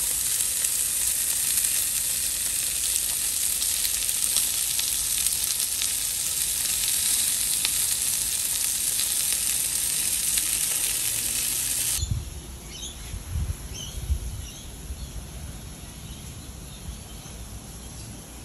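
Chicken leg quarters, fully cooked, sizzling on the grill grates with a steady hiss. It cuts off suddenly about twelve seconds in, leaving a quieter background with a few low thumps and faint high chirps.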